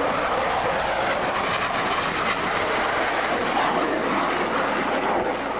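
Loud, steady jet noise from F-15 Eagle fighters' twin turbofan engines as the jets fly past overhead.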